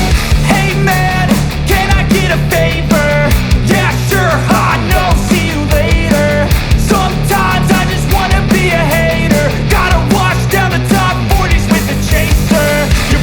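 Loud rock-style background music with a steady driving beat, sustained bass notes and a melody line that bends up and down.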